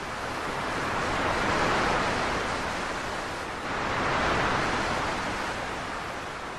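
Sea waves washing in: two swells of surf, the first peaking a little under two seconds in and the second about four seconds in, each rising and then fading.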